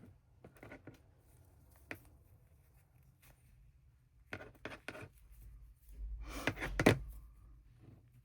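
Hands working at close range on a small doll on a tabletop: soft scattered clicks and rustles, then a louder cluster of knocks and handling noise with a low thump about six to seven seconds in.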